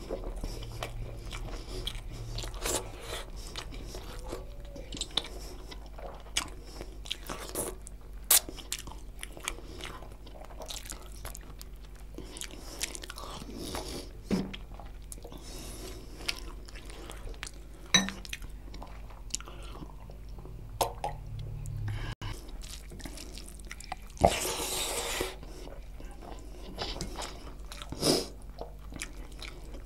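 Close-miked chewing and wet mouth sounds of a person eating chicken curry with rice by hand, with irregular smacks, bites and clicks. About 24 seconds in, a louder noisy sound lasts about a second.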